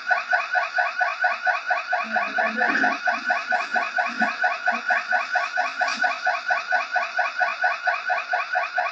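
Electronic burglar alarm going off with a rapid warble, about five or six pitch-sweeping pulses a second. A few faint low knocks sound underneath.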